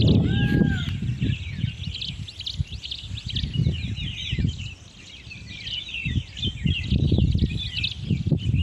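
Many small birds chirping at once, a dense overlapping chatter of short chirps, over a low rumble that comes and goes, strongest at the start and near the end. One short pitched call sounds about half a second in.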